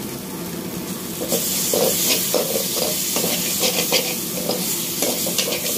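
Metal slotted spoon stirring and scraping a frying onion-tomato masala around an aluminium kadai over a sizzle. About a second in, the sizzle grows louder and quick scraping strokes begin, a few each second.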